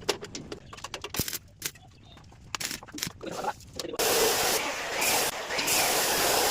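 Light metal clinks and knocks as steel pieces are handled, then from about four seconds a loud steady sizzling hiss with a few brief breaks, typical of arc welding on steel.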